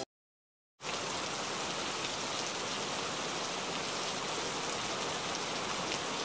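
Steady rain falling, an even hiss that starts a little under a second in, after a moment of dead silence.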